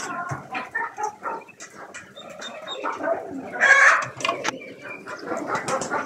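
A mixed flock of chickens and pigeons calling: hens clucking and pigeons cooing, dotted with short clicks, with a louder burst of calling about four seconds in.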